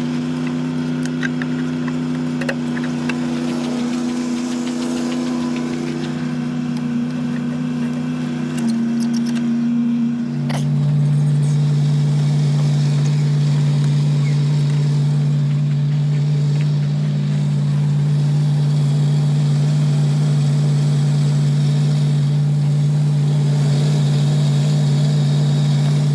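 Engine idling steadily, with light clicks and taps over it for the first several seconds. About nine seconds in its note shifts, and after a sharp click at about ten and a half seconds it runs steadier and a little louder.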